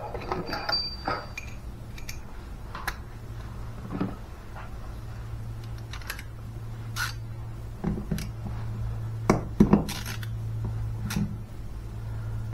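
Metal hand tools and small parts clinking and tapping against each other and on a Simson moped engine being taken apart. A scatter of sharp clicks, thicker in the second half.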